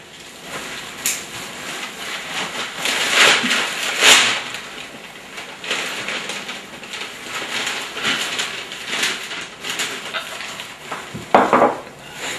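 Cutlery and dishes clinking and scraping at a breakfast table, in an irregular run of small knocks and scrapes.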